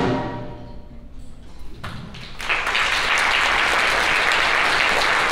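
A middle-school concert band's final chord dies away in the hall, then about two seconds in the audience starts applauding, building quickly to steady clapping.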